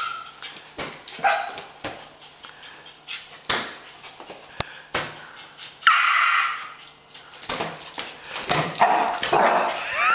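Miniature dachshund puppy yipping and barking in short, repeated bursts, one longer whining cry about six seconds in, mixed with many sharp knocks and scuffs of the balloon it is batting with its nose.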